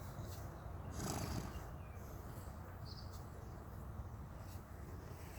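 Sleeping horse snoring, with one loud breathy snore about a second in.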